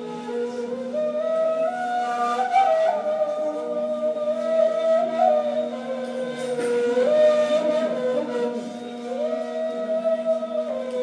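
Two neys, Turkish end-blown reed flutes, playing slow breathy music: a melody of long held notes moving stepwise and gliding between pitches, over a steady low tone held underneath.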